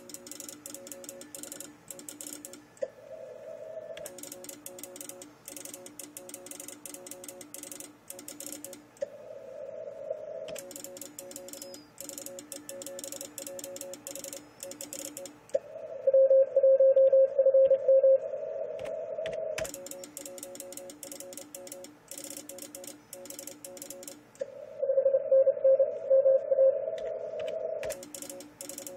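Morse code from an Icom IC-756PROIII transceiver during a 10-metre CW contest: rapid received tones at a couple of pitches, with static crackle, alternate with four louder runs of the station's own sent Morse in a single steady pitch. The last two runs are the loudest.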